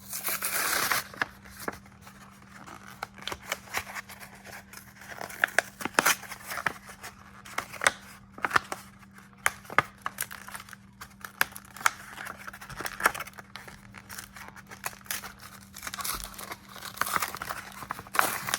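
A trading-card package and its booster packs being torn open and handled: a tearing rip about a second long at the start, then scattered crinkles, clicks and rustles, and another stretch of tearing near the end.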